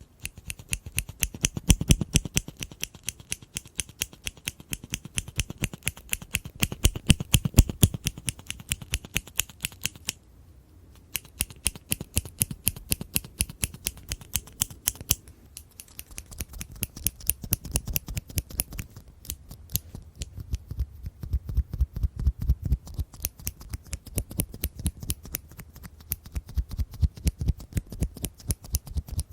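Scissors snipping in quick repeated strokes, several snips a second. The snipping pauses for about a second roughly ten seconds in, then carries on.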